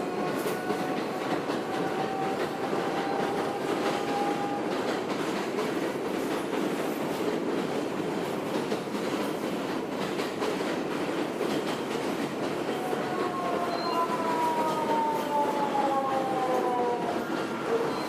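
Interior of an R160 subway car with Siemens propulsion running between stations, its air conditioning off: steady rumble of wheels on rail with light clicks, and the traction motors' whine. The whine rises slightly in the first few seconds, then comes as several falling tones from about 13 seconds in as the train slows.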